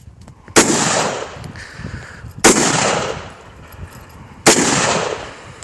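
Three rifle shots from an M1 Garand, about two seconds apart, each fading out over about a second after the crack.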